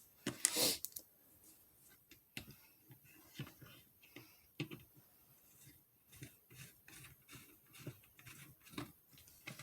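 Small Torx screws being started by hand into the plastic multifunction switch housing: faint scattered clicks and light taps of the screws and plastic parts being handled, with one louder knock about half a second in.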